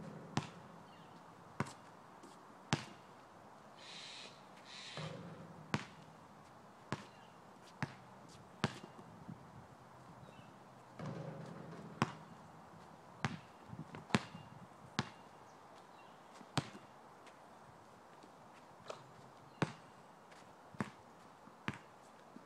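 A basketball bouncing on an asphalt court: sharp single bounces, often about a second apart, as in a free-throw dribble. Twice, about 5 and 11 seconds in, a longer ringing thud as a shot strikes the hoop.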